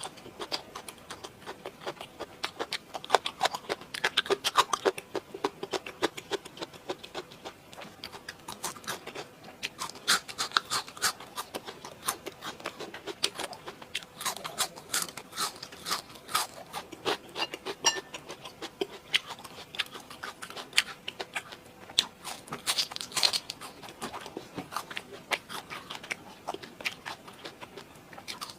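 Close-miked eating: a person chewing and biting into food, with dense, irregular crunching and crackling and wet chewing sounds throughout.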